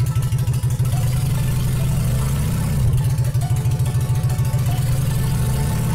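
Honda VLX600's V-twin engine running with its mufflers cut off, a fast low pulsing, the revs rising briefly about two seconds in and again near the end as the throttle is twisted.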